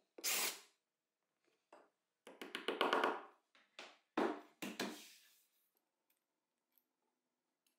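Plywood parts being handled and set in place on a wooden frame: light taps, a quick run of small clicks, and a few sharp wooden knocks, in short separate clusters.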